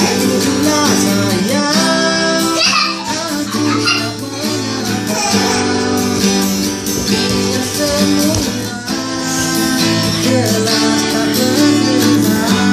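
Acoustic guitar strummed in a steady rhythm, with a voice singing along in places.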